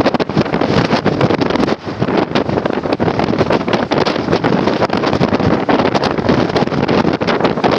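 Strong gusting wind buffeting the microphone in a loud, steady rush that flutters rapidly in level.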